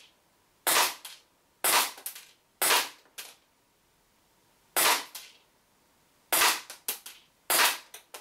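WE Colt 25 gas blowback airsoft pistol firing six shots, about a second apart with a two-second pause midway. Each sharp crack is followed by one or two quieter clicks.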